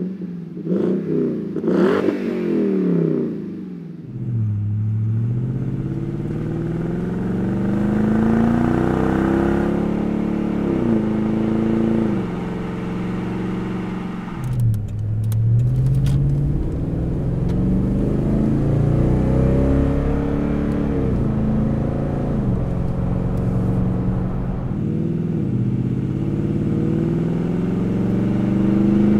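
Toyota Tundra 5.7-litre V8 through a Flowmaster FlowFX straight-through cat-back exhaust, heard at the tailpipe tip with a deep, throaty note. It opens with a few quick revs, then the truck accelerates through the gears, its pitch climbing and dropping back at each upshift, and it settles into a steady cruise near the end.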